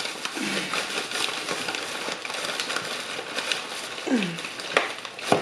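Takeout bag rustling and crinkling steadily as something stuck inside is tugged at, with a few sharp clicks near the end.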